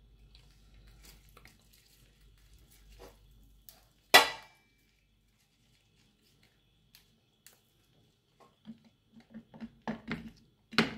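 Kitchen handling sounds around a stainless-steel cooking pot: one sharp metallic clank about four seconds in, then a few quiet seconds, then a run of softer knocks and taps near the end.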